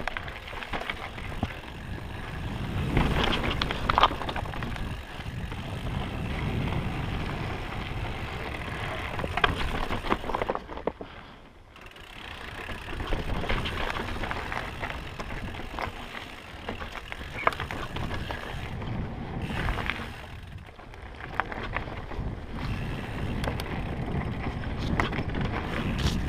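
Mountain bike riding down a rocky, rooty forest trail: the tyres roll and crunch over rock and dirt, and the bike rattles with sharp knocks over the bumps. There is a brief quieter spell about 11 seconds in.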